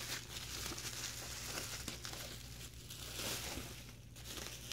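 Plastic bubble wrap crinkling as it is pulled off a tubular roller-shade motor, with a louder rustle about three seconds in.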